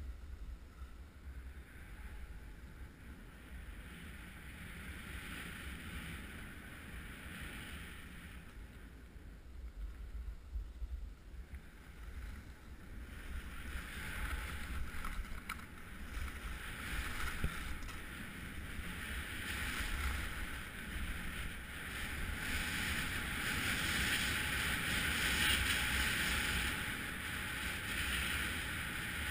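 Skis sliding and scraping over packed snow, a steady hiss, with wind rumbling on the microphone. The hiss grows louder from about halfway through.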